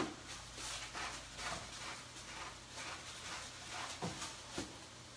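Cooking at a skillet of sautéing ground chicken: rhythmic rasping strokes, about two a second, that stop about four seconds in, then two dull knocks.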